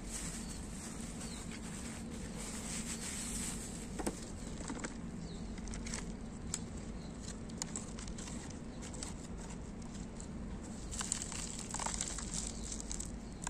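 Gloved hand pushing fruit and vegetable peels into a perforated plastic bottle buried in soil: scattered light crinkles, rustles and small clicks of plastic and peel, busier near the end, over a steady low hum.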